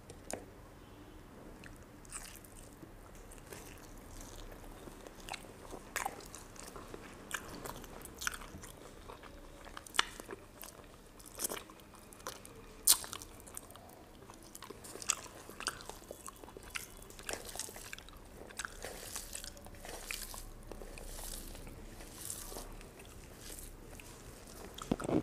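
A person eating rice and fried fish by hand, close to the microphone: irregular crunching and chewing with sharp mouth clicks, and fingers working the rice on the plate.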